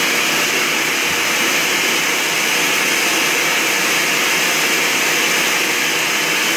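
Countertop blender running steadily at full speed with a high whine, pureeing chunks of cucumber, ginger, lemon and basil leaves.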